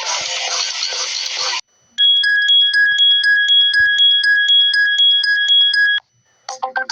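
Android phone ringtones played back: a busy musical ringtone cuts off, then after a short pause a high electronic ringing tone beeps in quick, even pulses for about four seconds and stops, and another melodic ringtone begins near the end.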